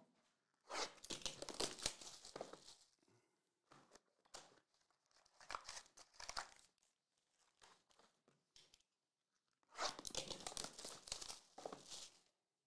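Wrapping on 2022 Select UFC trading card boxes and packs being torn open and crinkled by hand, in several bursts with the loudest near the end.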